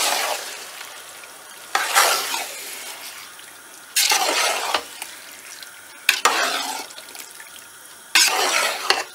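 Raw chicken pieces sizzling in hot oil and spice masala in a pot as they are stirred with a metal spoon. The sizzle flares up suddenly four times, about two seconds apart, each time fading back to a softer hiss.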